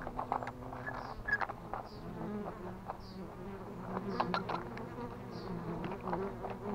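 Honeybees buzzing around a swarm trap that a swarm has settled into and is already foraging from: a steady, wavering drone of many wings, with scattered light clicks.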